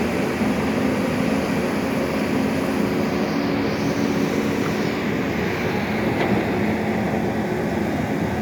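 Heavy machinery of a drilling rig running steadily: a continuous engine-and-machine noise with a low, even hum and no breaks.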